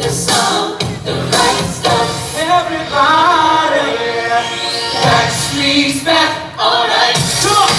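A pop boy band medley sung live by several female and male singers over a backing track, with held, gliding vocal notes.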